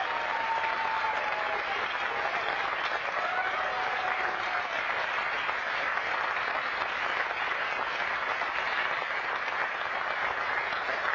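A church congregation applauding steadily, with a few voices calling out over the clapping in the first four seconds or so.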